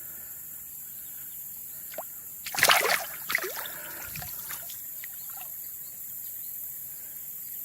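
A short burst of splashing about two and a half seconds in, followed by a few smaller splashes, over a steady faint rush of river water: a smallmouth bass being released back into the river.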